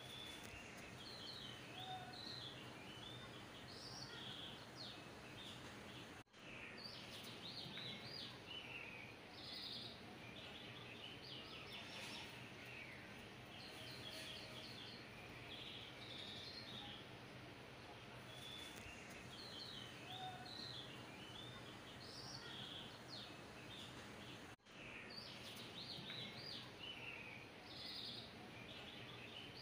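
Faint birdsong: many small birds chirping and trilling over a steady low hiss and hum. The sound cuts out briefly twice, about six seconds in and again near the end.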